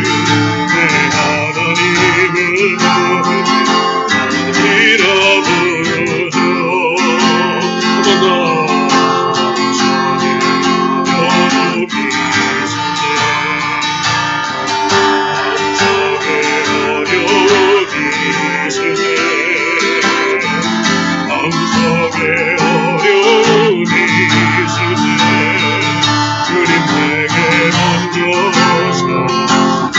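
Acoustic guitar strumming chords under a singing voice, a Korean gospel praise song.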